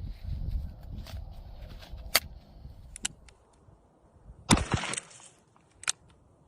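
A single shot from a Taurus Judge Home Defender revolver about halfway through: a loud, sharp report with a short ringing tail. A couple of sharp clicks come before it, and there is low rumbling noise early on.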